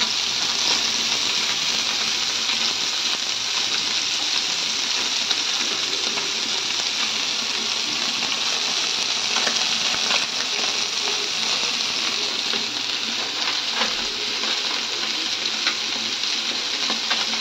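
Whole small fish shallow-frying in hot oil in a flat pan: steady, dense sizzling with a few scattered small pops of spitting oil.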